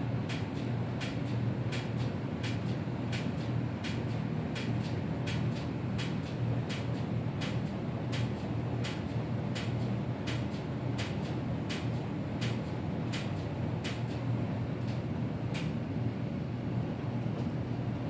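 Steady low mechanical hum with sharp, regular clicks about three times a second; the clicks stop a few seconds before the end while the hum carries on.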